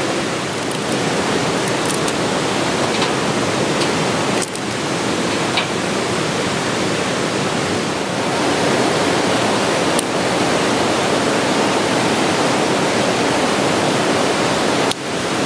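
Steady rush of flowing stream water, with a few light snaps and crackles as small twigs are fed onto a newly lit newspaper fire.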